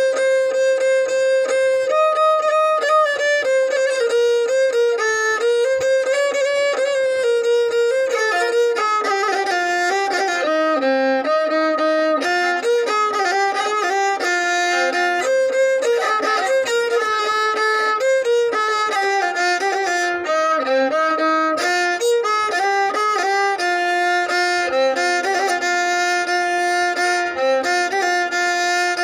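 Solo violin playing a melody, one note at a time, with notes sliding into one another.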